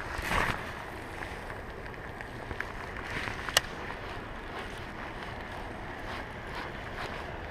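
Fishing rod cast whooshing near the start, then a steady hiss of wind and light rain, with one sharp click about halfway through.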